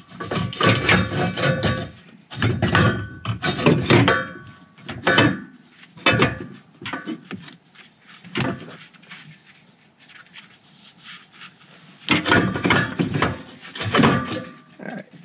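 BMW N54's lower factory downpipe and its catalytic converter being worked out from under the car: the steel pipe knocks, clanks and scrapes against the surrounding metal in bursts. There is a quieter stretch in the middle, then more knocking near the end.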